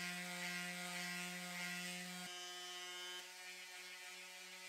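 Electric palm sander running steadily as it sands a 3D-printed PLA part, a steady motor hum whose low note drops away about two seconds in.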